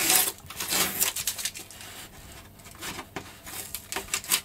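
Masking tape and clear plastic film being peeled off a carbon-fibre wing by hand, crackling and rustling in short bursts with small ticks.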